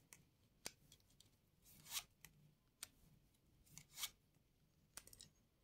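Near silence broken by a few faint, scattered taps and soft rustles of playing cards being handled and laid down.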